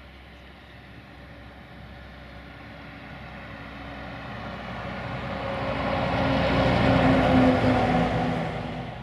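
A car on the road drawing nearer, its engine and tyre noise growing steadily louder, loudest about seven seconds in, then dropping away quickly near the end.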